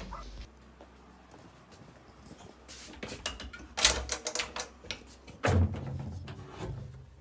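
A door handle clicking and a door being opened and shut: a few sharp knocks and clicks, the loudest a little under four seconds in, and a heavy thud about a second and a half later.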